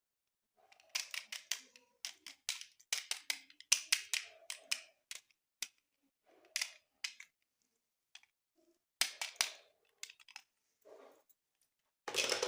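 Plastic toy packaging and parts being handled: irregular bursts of sharp clicks and crinkling, with short pauses between them.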